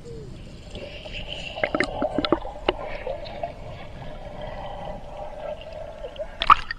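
Muffled water sloshing and gurgling heard through a submerged camera in shallow water, with a cluster of sharp clicks about two seconds in and a louder click near the end.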